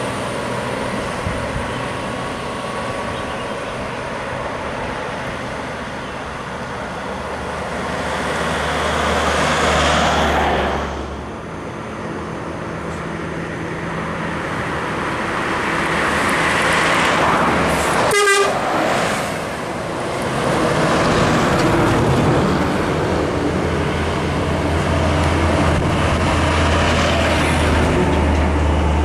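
Intercity buses passing on a highway: engine running and tyre noise swelling as each bus approaches and passes. A single short horn toot sounds about two-thirds of the way through.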